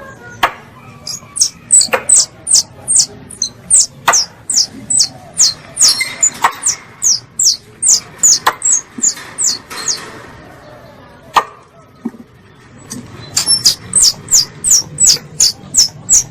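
Squirrel lure call: a rapid series of high, sharp chips, each dropping slightly in pitch, about three a second. It breaks off for a couple of seconds about two-thirds of the way through, then starts again. A few loud clicks fall in between.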